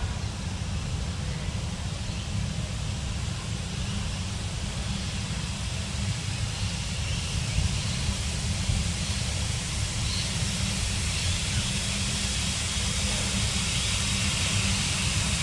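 Steady low wind rumble on the microphone, with a hiss that slowly grows louder towards the end as the 1907 Fowler 0-6-2T steam tank locomotive approaches.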